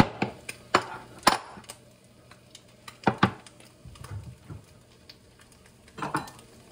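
Clinks and knocks of a glass bowl and its lid being handled on a kitchen counter: several sharp taps in the first second and a half, a close pair about three seconds in, and a last knock near the end.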